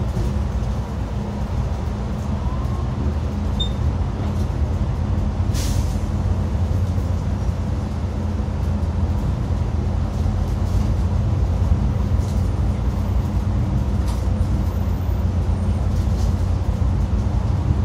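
Xiamen King Long XML6125 hybrid city bus under way, heard from on board as a steady low drone. There is a short sharp hiss about six seconds in.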